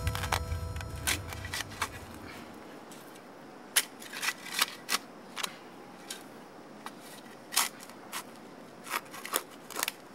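A shovel digging into hard, rocky soil: sharp crunches and scrapes of the blade, irregularly spaced, a stroke every half second to a second. A low rumble dies away during the first two seconds.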